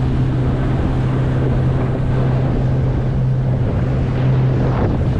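Small fishing boat's motor running at a steady speed under way, a constant low hum, with wind buffeting the microphone and water rushing past the hull.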